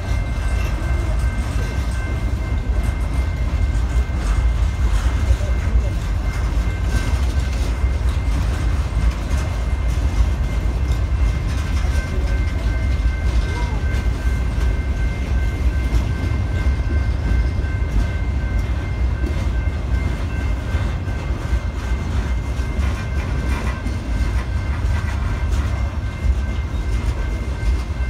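Long freight train of boxcars and covered hoppers rolling past close by, its wheels on the rails making a steady, unbroken heavy rumble.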